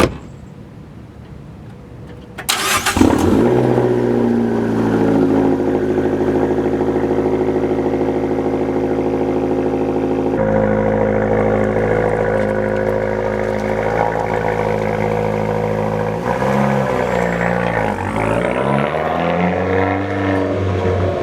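Fiat 500 Abarth's 1.4-litre turbocharged four-cylinder engine cranking and catching about two and a half seconds in, then running steadily. Near the end its engine speed rises and falls a few times.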